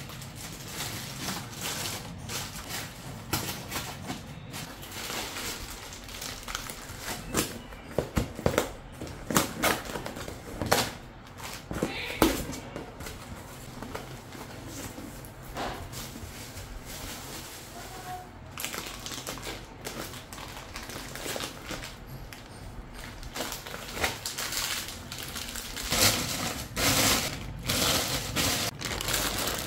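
Background music under scattered clicks, knocks and crinkling from objects being handled.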